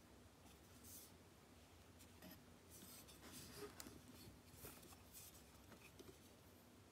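Faint handling noise: scattered soft rustles and light ticks as a USB condenser microphone is gripped and tilted in its foam-lined packaging.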